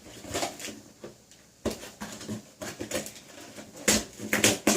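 Handling noise from a Nerf Tri-Strike blaster and its box and packaging being unpacked: a string of rustles, clicks and knocks, loudest near the end.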